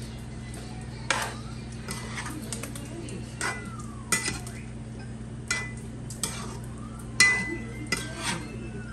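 A metal utensil stirring chicken in a pot, clinking and scraping against the pot about ten times at irregular intervals, over a steady low hum.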